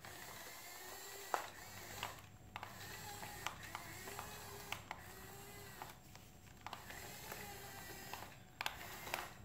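Faint whine from a toy excavator's small motor, its pitch rising and falling in arcs, with scattered light clicks and taps.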